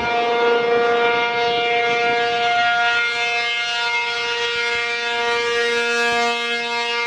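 American Signal T-135AC outdoor warning siren sounding during a scheduled monthly test. It holds a steady pitch made of two notes, and its loudness swells and sags slightly.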